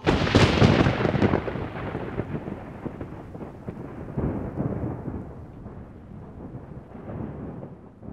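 Thunder sound effect: a sudden loud crack, then a rolling rumble that swells again about four and seven seconds in and slowly dies away.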